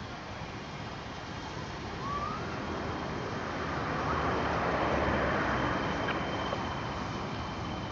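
English Electric Class 20 diesel locomotive's 8SVT V8 engine worked hard under power as it pulls a train away, growing louder to a peak about five seconds in, with a steady high whistle joining in partway through.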